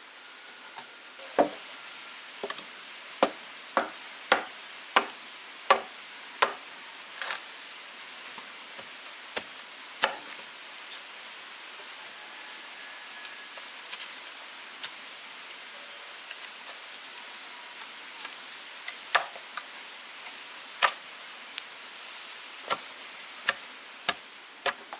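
A blade chopping wood: a run of sharp strikes about every two-thirds of a second, a pause with a few lighter knocks, then another run of strikes near the end, over a steady hiss.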